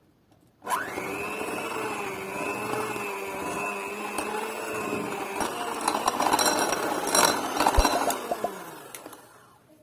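Electric hand mixer starting abruptly and running at a steady pitch. In the second half it gets rougher, with clicks and rattles, then winds down with a falling pitch near the end as it is switched off.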